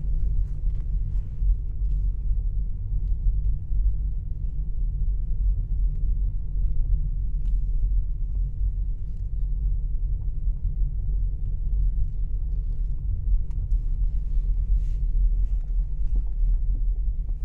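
Car tyres rolling over a brick-paved street, making a steady low rumble.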